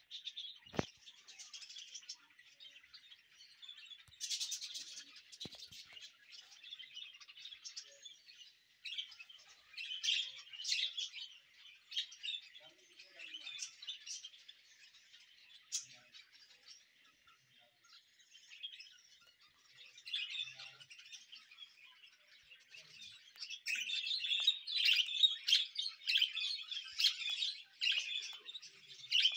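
A flock of budgerigars chattering and chirping without a break, growing louder and busier near the end. A single sharp click about a second in.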